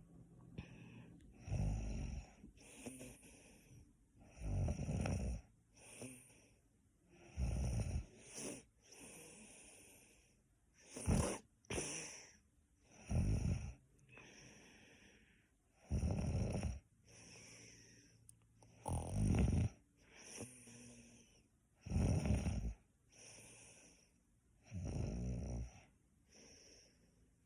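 Snoring during sleep, about nine snores in all, one every three seconds or so, with softer breathing sounds between them.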